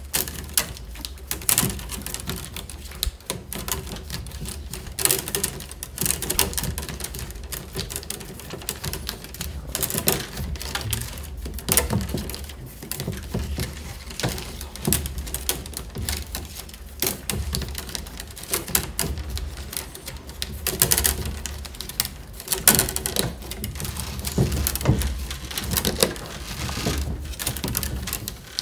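Peeled willow rods creaking and clicking as they are woven in and out between the stakes of a wicker basket wall, with irregular sharp clicks and rustles.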